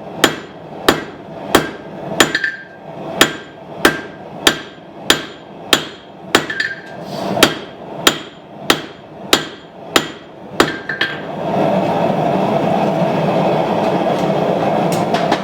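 Hand hammer striking hot steel on an anvil, drawing out a knife tang in steady blows at about three every two seconds, each with a short metallic ring. About eleven seconds in the hammering stops and gives way to a steady rushing noise.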